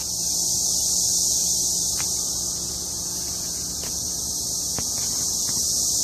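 A swarm of cicadas calling in the trees: a steady, high-pitched shrill drone of many insects together, swelling slightly about a second in and again near the end.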